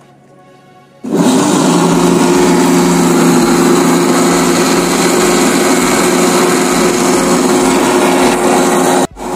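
Electric mixer grinder switched on about a second in, running at a steady high speed as it blends soaked fennel seeds with sugar and cream. The motor cuts out for a split second near the end and starts again at once.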